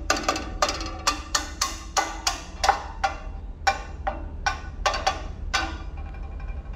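A quick, irregular run of sharp knocks, about three a second, each with a short ringing tone, stopping near the end; a steady low hum underneath.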